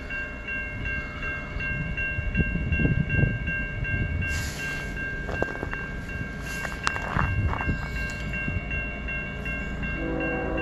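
Railroad grade-crossing bell ringing steadily with evenly repeated strikes, over the low rumble of an approaching CN freight train. Near the end the leading locomotive's horn starts to sound.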